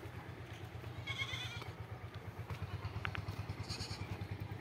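A short, wavering animal call, bleat-like, about a second in, over a low, rapidly pulsing rumble.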